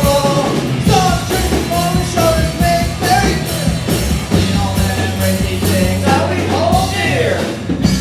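Live rock band playing at full volume: a driving drum beat and bass under a wavering sung melody.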